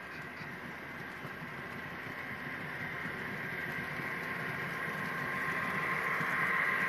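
Model Union Pacific streamliner passenger train running on the layout, a steady mechanical running sound with a whine that grows louder as the train comes closer.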